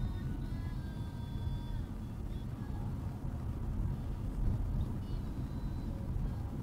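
Steady low rumble of a second-generation Honda CR-V driving along a paved road, heard from inside the cabin: engine and tyre noise.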